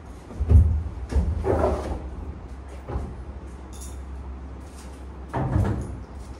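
Knocks and bumps of a hard-shell trolley suitcase being pulled out of a wooden wardrobe and handled, the loudest knock about half a second in, a cluster of bumps and scraping soon after, and more thumps near the end.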